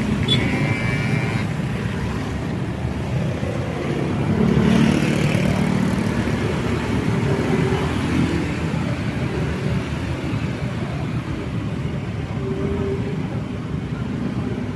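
Road traffic: motor vehicles passing in a continuous low rumble, with one passing louder about four to five seconds in.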